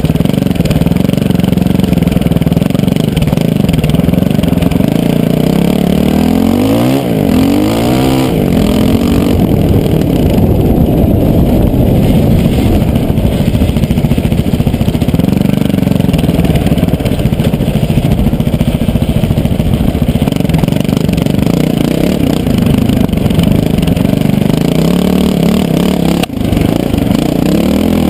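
KTM LC4 620's single-cylinder four-stroke engine running hard off-road, its pitch swinging up and down as the throttle opens and closes, with a steep rise about seven seconds in. A single sharp knock comes near the end.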